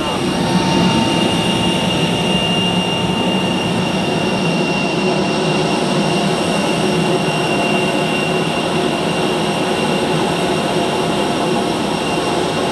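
Steady turbine whine and rush from a parked Airbus A320 with its auxiliary power unit running, a constant high tone over the noise.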